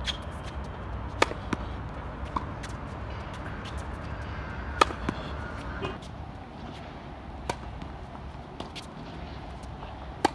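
Tennis overhead smashes: sharp racket-on-ball hits a few seconds apart, the loudest about five seconds in and again at the very end, with smaller ticks of the ball bouncing between them, over a steady low background rumble.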